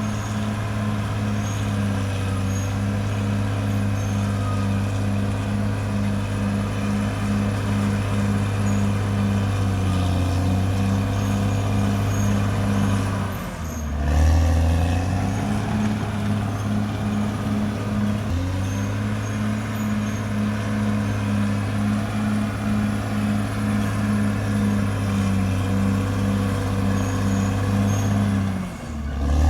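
Caterpillar D6R XL bulldozer's diesel engine running under load, with a steady low drone and a regular pulsing beat. The engine note dips and picks up again twice, about halfway through and near the end.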